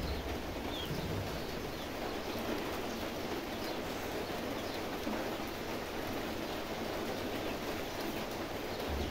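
Steady rushing noise, with a few faint short chirps.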